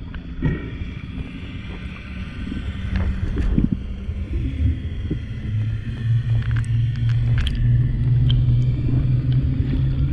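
Underwater sound: a steady low motor drone that grows louder about halfway through, with a few short orca calls and scattered sharp clicks over it.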